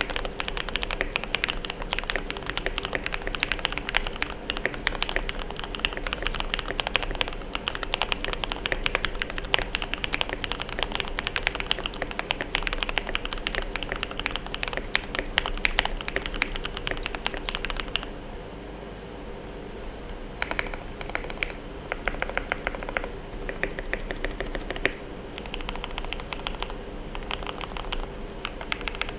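Typing on a mechanical keyboard with lubed Gateron Milky Yellow linear switches in an aluminium KBD75 v2 case with foam and tape inside, fitted with ASA-profile keycaps: a fast, continuous stream of keystroke clacks. After about 18 seconds it turns into slower, sparser bursts of keystrokes, sounding duller.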